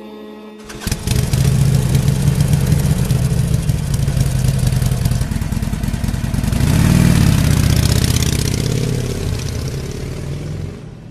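Motorcycle engine catching suddenly under a second in and running with a rapid, even firing beat. It is revved up and back down about seven seconds in, then fades out near the end.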